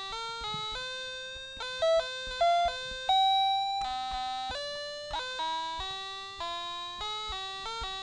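Background music: a melody of clear, bell-like notes changing quickly, with one longer held note about three seconds in.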